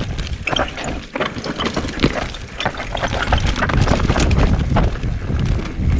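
Mountain bike rolling over rough dirt trail: a steady rumble of tyres on the ground, broken by many short rattles and knocks from the bike over rocks and roots.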